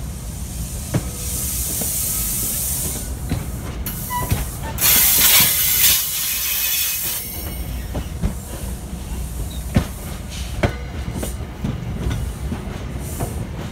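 Metro-North commuter train pulling slowly out of the station, its cars rolling past with a steady low rumble. A loud hiss comes about five seconds in, and scattered sharp clicks and knocks of wheels over rail joints follow.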